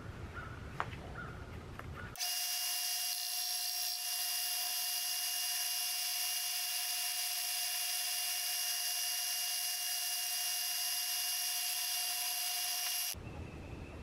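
Bench-top power sander running steadily with a constant whine while a stick frame is held against it, sanding the stick ends. It starts suddenly about two seconds in and cuts off about a second before the end, after a few light clicks of sticks at the start.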